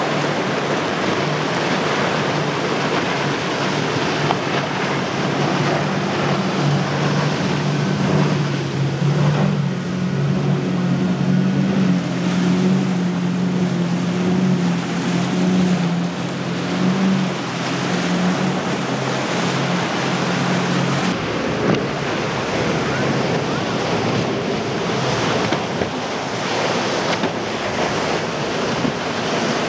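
Outboard-powered boats running at speed through choppy inlet water: a steady engine drone under wind buffeting the microphone and the rush of wake and waves. The engine note steps up about a fifth of the way in, then drops out abruptly about two-thirds through, leaving wind and water.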